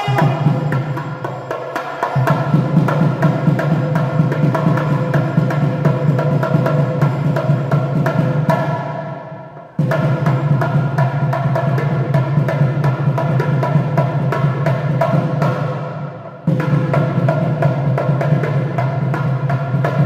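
Nadaswaram, the South Indian double-reed pipe, playing a melody over rapid, dense drum strokes on the thavil barrel drum. The sound sags and then cuts back in abruptly twice, a little before halfway and again about three-quarters through.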